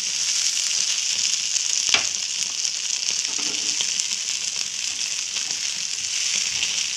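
Masala-coated Indian mackerel (bangude) sizzling steadily in coconut oil in a shallow nonstick pan, the fish fried through. A metal spatula taps the pan once, sharply, about two seconds in.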